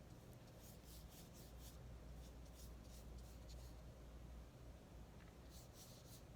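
Faint soft swishes of a paintbrush stroking watercolour onto paper: a quick run of short strokes, a pause, then a few more near the end.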